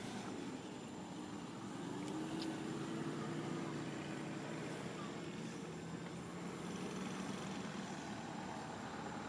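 A motor vehicle engine running in the background, a low hum that swells about two seconds in and shifts slightly in pitch, over steady outdoor noise.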